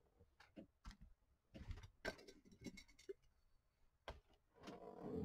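Faint scattered clicks and knocks of a swing-top glass jar's wire clasp being handled and opened, the sharpest click about four seconds in.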